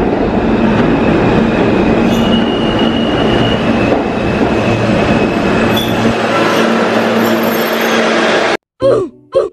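New York City subway N train pulling into the station: a loud, steady rumble of the train, with a thin high wheel squeal about two seconds in. Near the end it cuts off abruptly to music with a pulsing beat.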